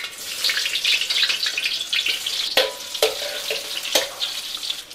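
Cubes of tempeh sizzling as they fry in hot oil in a steel wok. A spatula knocks against the wok a few times in the second half, each knock ringing briefly.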